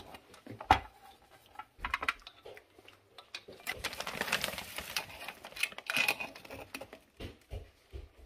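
Metal tongs clicking and scraping against a metal cooking pot and cooked crab shells, with the loudest sharp click under a second in. Hot broth splashes and drips as the boiled Dungeness crabs are turned and one is lifted out.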